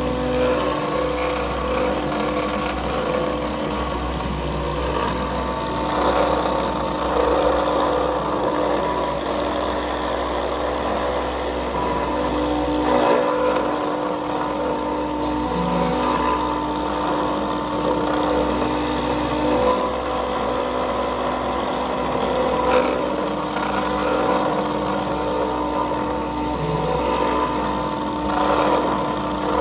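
Small desktop CNC router milling a clear plastic sheet on a roughing pass: the spindle motor runs steadily and the end mill cuts as the machine moves the tool, giving a continuous mechanical whir with several held tones.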